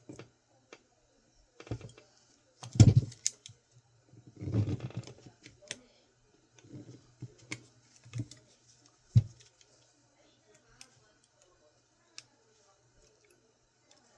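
Small hard drive parts being worked loose by hand: irregular clicks, clacks and knocks of metal and plastic, loudest about three seconds in, with a half-second rattle a little later and a sharp knock near the middle.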